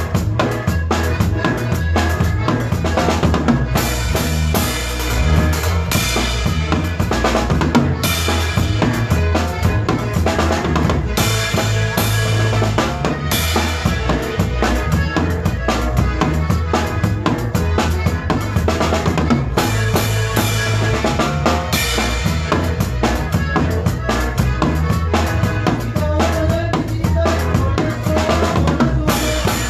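Live conjunto band playing a passage with no singing, driven by a drum kit and a steady bass line.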